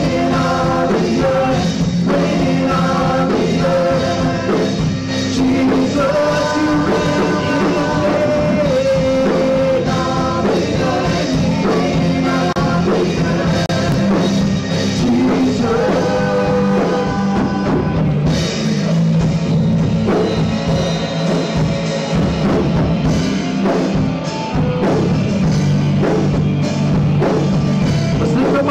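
Live worship band playing an upbeat rock-style song, with guitars, keyboard and drums under women singing the melody into microphones.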